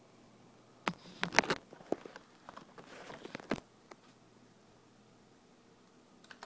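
A quick cluster of sharp clicks with rustling between them, starting about a second in and stopping after about two and a half seconds, then a couple of faint clicks near the end.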